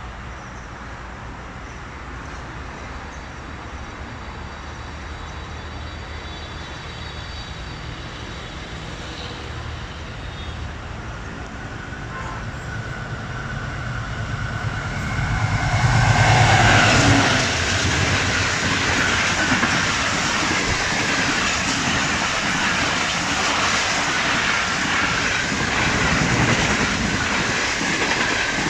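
AGE-30 diesel-electric locomotive approaching at speed, its rumble growing louder and peaking as it passes about 16 seconds in. Then the coaches of the passenger express rush by with continuous rapid wheel clatter on the rails.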